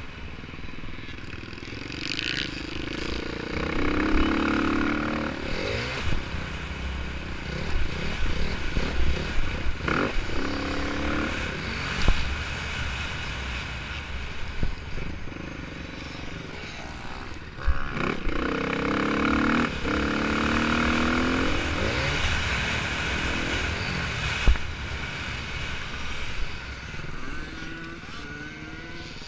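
ATV engine at race pace, revving up and dropping back again and again as the rider accelerates and shifts, with a few sharp knocks and clatter from the machine over rough ground.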